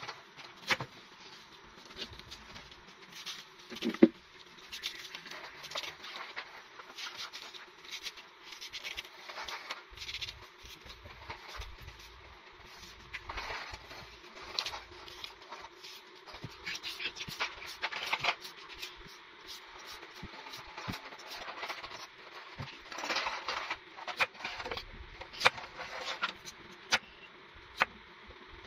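Vegetable preparation: napa cabbage leaves torn apart and handled with crisp crackles and scrapes, then a knife cutting carrot on a board with sharp taps near the end. A single loud knock about four seconds in.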